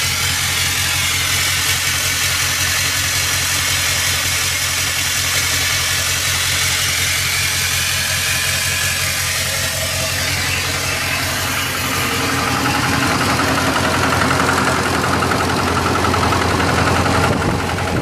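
Ford 6.0 Power Stroke V8 turbodiesel idling steadily. About two-thirds of the way through it grows a little louder and harsher.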